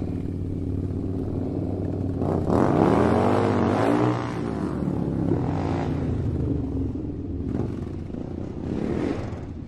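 Toy RC rock-crawler monster truck's electric motor and gearbox whining as it is driven over dirt. The pitch rises and falls, loudest about two to four seconds in.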